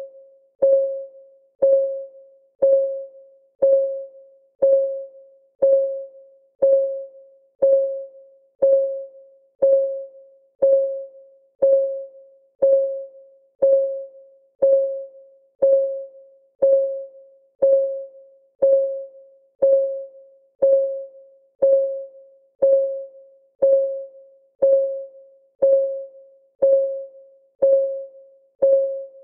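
Countdown timer's electronic clock ticking: a short, single-pitched tick that dies away quickly, repeated evenly about once a second.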